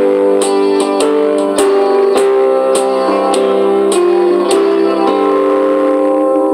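Instrumental music: held melodic notes over a regular beat of light strokes about twice a second.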